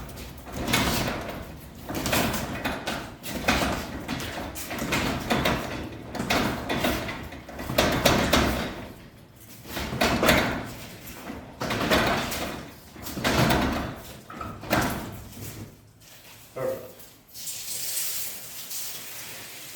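Old, dry-rotted rubber weather seal being ripped off the bottom of a wooden garage door in repeated tearing pulls, about one a second.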